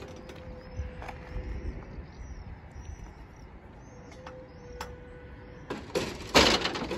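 Small birds chirping over a low outdoor rumble, with a faint steady tone heard twice. A burst of loud rustling noise comes near the end.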